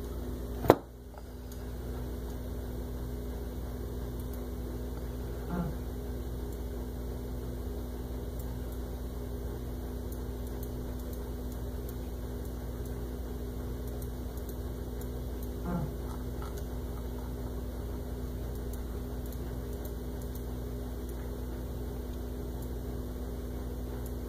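Steady low electrical hum, broken by one sharp loud click about a second in and two faint clicks later on.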